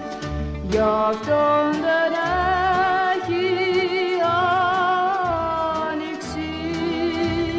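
Background music: a song with a voice holding long, wavering notes over a line of low bass notes and light percussion.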